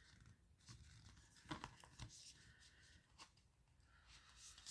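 Faint rustling of tarot cards being handled, with a few soft clicks.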